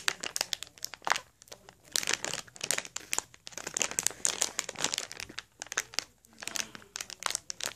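Crinkly wrapper of a blind-pack collectible dog tag being crumpled and pulled at in irregular bursts while it is worked open by hand, the pack proving hard to tear.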